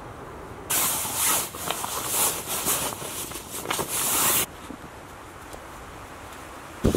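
Loud rustling and scraping of clothing and gear as someone moves about, for about four seconds, cutting off suddenly. A single thump near the end.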